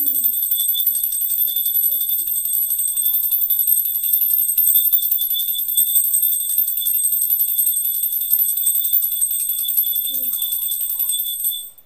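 Puja hand bell rung rapidly and without pause, a steady high ringing that stops suddenly near the end.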